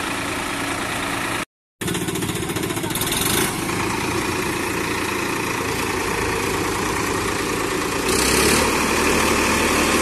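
Swaraj 963 FE tractor's diesel engine running steadily at idle, with the sound cutting out for a moment about a second and a half in; the engine note gets louder about eight seconds in.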